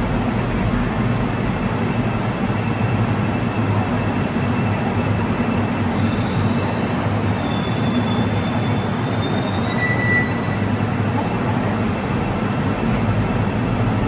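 Seoul Subway Line 4 electric train pulling into the platform and slowing to a stop, a steady rumble of wheels on rail. Faint high squeals drift through it, with one short squeal about ten seconds in.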